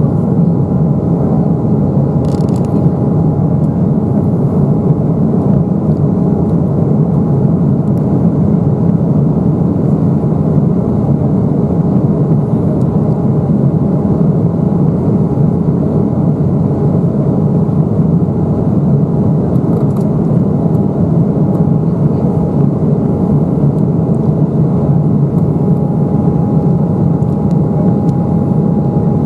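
Steady cabin noise of an Embraer 195 airliner in flight, heard from a window seat: a constant rumble of its GE CF34 turbofan engines and the airflow over the fuselage, with a thin steady whine on top.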